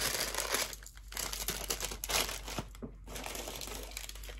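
Paper packaging rustling and crinkling as a rolled paper spell and striped paper bags are handled and taken from a box, in several uneven bursts.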